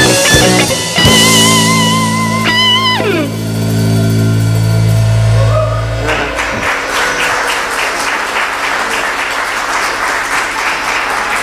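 Live rock band ending a song: electric guitars and drums hold a final chord while a lead guitar note wavers with vibrato and then slides down, and the chord rings out. About six seconds in the music stops and the audience applauds.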